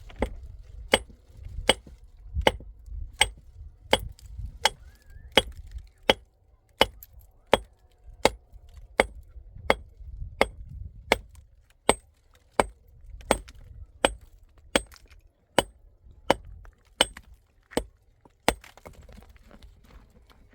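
Steady, rhythmic striking: sharp blows with a slight ring, about four every three seconds, from a tool such as a hammer or axe working on something hard.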